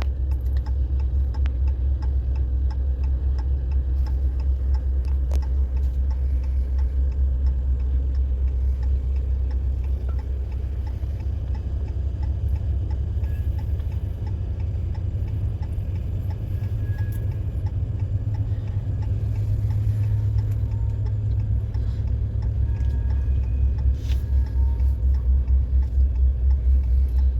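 Long freight train rolling past: a steady low rumble with a fast, even pulsing from the cars' wheels, growing stronger near the end.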